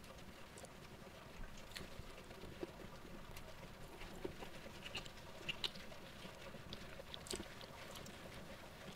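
Faint close-up mouth sounds of a man eating rice and side dishes by hand: chewing, wet smacks and scattered small clicks, busiest in the middle.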